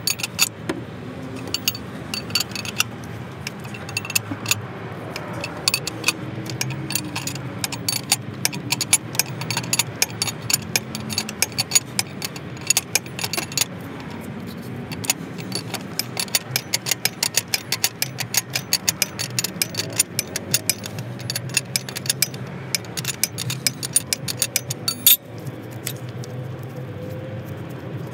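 Rapid metallic clicking of a ratcheting wrench being swung back and forth on the nut of an injector-sleeve puller, drawing the injector cup out of a Hino diesel cylinder head, with a low hum underneath.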